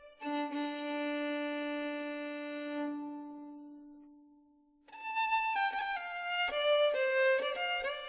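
Violin music: a long held note that fades away almost to silence, then a new melodic phrase of changing notes starts about five seconds in.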